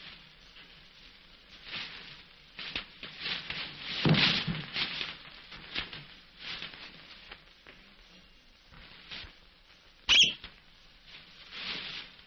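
Paper crinkling and rustling in irregular handfuls, with a soft thump about four seconds in and a short, sharp high-pitched sound about ten seconds in.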